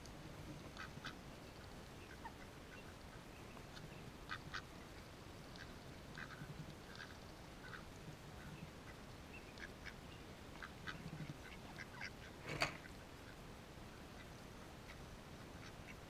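Mallard ducks feeding on grass right beside the microphone: quacking and a scatter of short clicks as their bills work the grass. One sharp knock stands out about twelve and a half seconds in.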